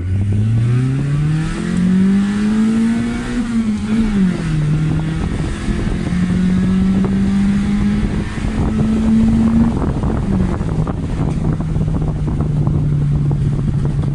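Proton Waja's engine revving, rising in pitch for about three seconds, dipping, then held steady at high revs before dropping to a lower steady pitch near the end. Rapid exhaust crackling runs under it from about five seconds on: the pops and bangs of a remapped ECU.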